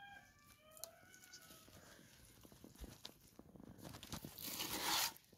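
Wet mud being scooped from a bucket and packed onto a charcoal kiln by hand: scattered wet crunches, then a loud gritty scrape lasting about a second near the end. A hen clucks briefly near the start.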